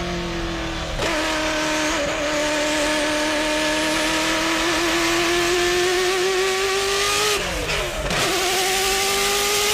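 Ferrari F40 LM's twin-turbo V8 running hard under load. About a second in there is a gear change, then a long, slow climb in pitch. Near the end the revs dip sharply and recover before climbing again.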